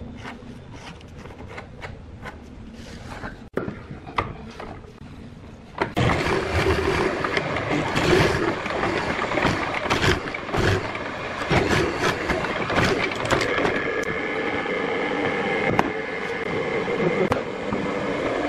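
Pencil scratching as it traces around a paper template on a wooden board, then, about six seconds in, a much louder hollow-chisel mortiser running and boring into a pine block, the machine's steady hum under the cutting noise.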